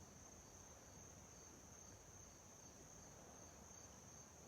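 Faint chorus of crickets: a steady high-pitched trill with a softer chirp repeating evenly beneath it.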